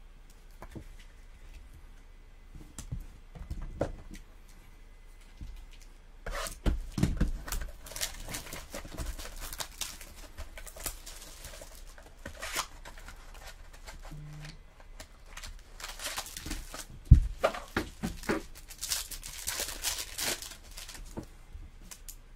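Bowman baseball card packs being torn open by hand, the wrappers ripping and crinkling, with cards sliding and rustling between fingers; quieter handling for the first few seconds, then busy tearing and shuffling, and one sharp knock about two-thirds of the way through.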